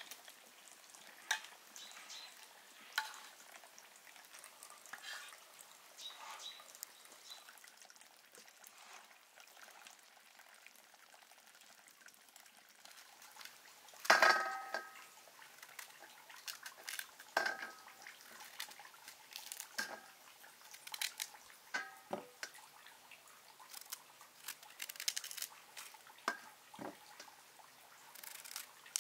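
Knife cutting into quinces and pieces dropping onto a metal tray: scattered sharp clicks and clinks, coming more often in the second half, the loudest a ringing metallic clink about halfway through.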